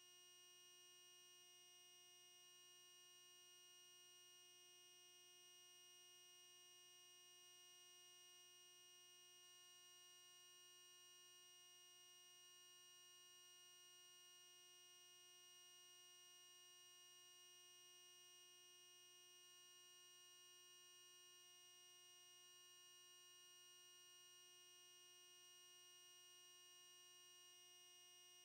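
Near silence, with only a faint, steady electronic hum made up of several fixed tones that never change.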